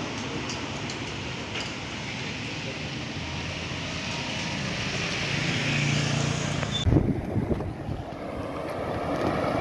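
Steady hiss of traffic on a wet, rain-soaked street, with a vehicle's engine growing louder as it passes close. About seven seconds in, this cuts to wind buffeting the microphone.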